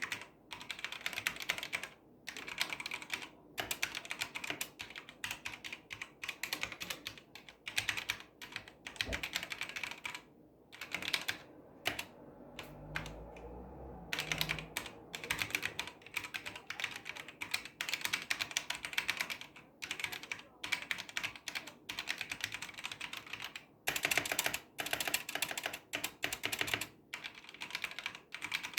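Typing on a HyperX Alloy FPS RGB mechanical keyboard with Kailh Silver Speed linear switches: rapid runs of keystrokes in bursts, broken by short pauses.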